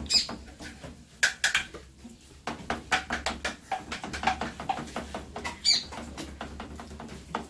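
Wooden spoon stirring scrambled egg and chopped sausage in a frying pan: irregular scrapes and taps against the pan, over a steady low hum.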